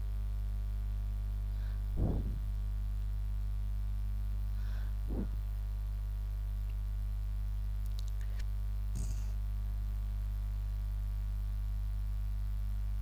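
Steady electrical mains hum, with a few faint, brief thumps and clicks.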